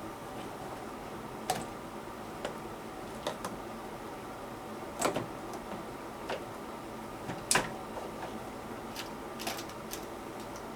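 Scattered sharp clicks and knocks, about nine at uneven intervals, the loudest about halfway through and again a little later, over a steady faint hiss: parts and tools being handled while a drum-type washing machine is taken apart or put back together.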